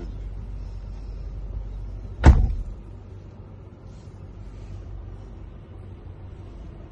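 SUV driver's door slammed shut about two seconds in, a single heavy thud, over the steady low rumble of the running vehicle heard from inside the cabin; the rumble is a little quieter once the door is closed.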